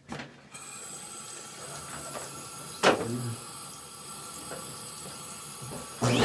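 A steady hiss with one sharp knock about three seconds in; right at the end a vacuum cleaner switches on, its motor whining up to speed.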